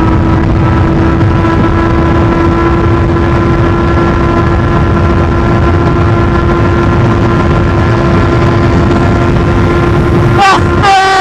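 Aprilia Tuono V4 motorcycle's V4 engine running at a steady cruise, its pitch holding constant, under a heavy low rumble of wind on the rider's microphone. Near the end a brief wavering pitched sound rises over it.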